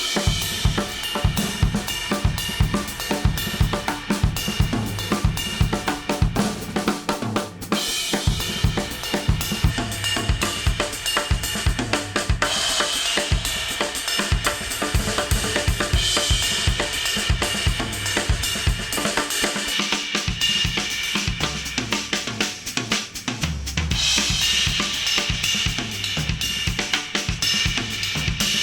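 Instrumental music led by a drum kit, with snare, hi-hat, cymbals and bass drum keeping a steady beat, played back through AKG studio headphones and captured by an artificial-ear microphone.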